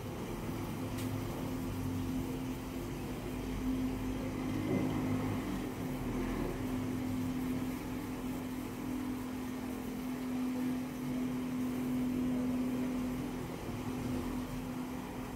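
Steady machine hum and whir, with a single held low humming tone that fades out near the end.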